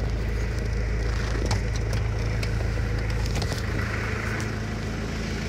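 Fiat Croma 2500 TD's 2.5-litre turbo-diesel engine idling steadily, with a low hum and scattered light ticks and clicks. About three and a half seconds in, the low part of the hum changes.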